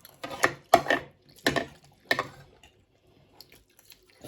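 Noodles being slurped: four short, wet slurps in quick succession, then quiet eating.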